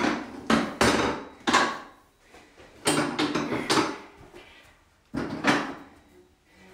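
Knocks and clunks of home-gym equipment being moved and set down: a weight bench and hand weights. The loudest come in the first two seconds, with a few more near the middle and two after five seconds.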